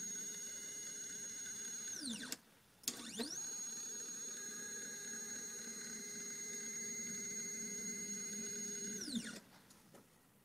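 Stepper motors of a Sainsmart 3018 PROVer desktop CNC router driving an axis during a jog, a steady high whine. It drops in pitch and stops about two seconds in. After half a second's pause it rises back up to pitch and runs steady as the carriage travels to the right. It winds down to a stop about a second before the end.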